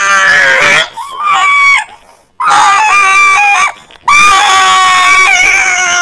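A man making silly vocal noises: four loud, high-pitched screams in a row, each held for about a second, with the first and last sliding down in pitch.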